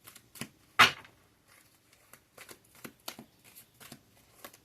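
Tarot cards being shuffled by hand: a quick run of light card snaps and flicks, with one sharper snap about a second in.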